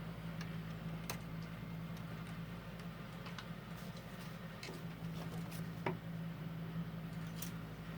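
Scattered light clicks and taps, irregular and a second or so apart, of small wire cargo-cover bows and plastic parts for a 1/16 scale RC truck being handled, over a steady low hum.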